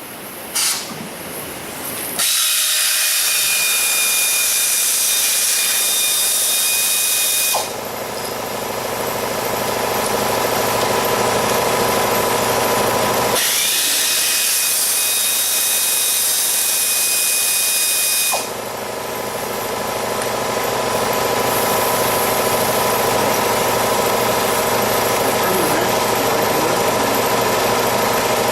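A power tool running in long runs during the engine teardown. A loud hissing whine plays from about two to seven seconds and again from about thirteen to eighteen seconds, and a lower, steadier machine hum fills the stretches between and after.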